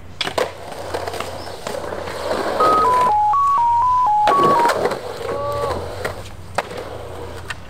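Skateboard rolling and clacking on concrete, broken just before the middle by a loud run of about nine quick electronic beeps at changing pitches, lasting about two seconds.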